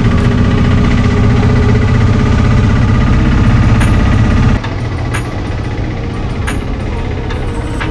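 Engine of a Vikram three-wheeler tempo heard from inside its open cabin while driving: a loud, steady running note with a rapid, even pulse. About halfway through it drops to a quieter level.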